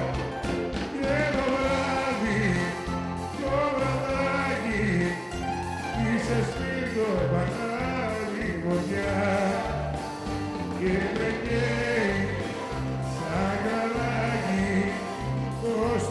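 Live band playing Greek popular music through a PA, with a pulsing bass line and a winding melodic lead.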